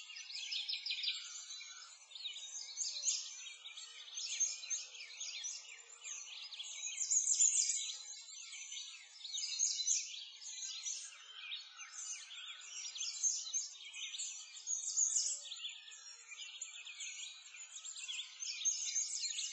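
Dense chorus of many small birds chirping and twittering, unbroken and overlapping.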